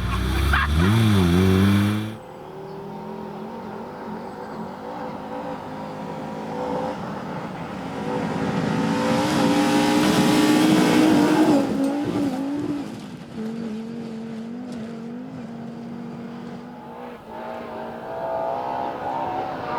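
Rally car engines at full throttle on a gravel stage, the pitch rising and falling through the gears. The sound drops off suddenly about two seconds in. A car then builds to a close pass, loudest in the middle with a hiss of tyres and gravel, fades, and another engine rises near the end.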